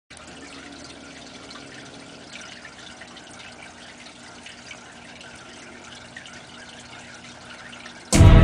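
Faint steady trickle and light dripping of aquarium water, with small ticks. About eight seconds in, loud music cuts in suddenly.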